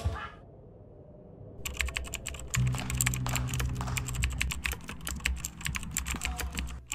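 Keyboard typing sound effect: a rapid, irregular run of key clicks that starts about a second and a half in, as on-screen text is typed out, with a low steady tone underneath from about halfway through.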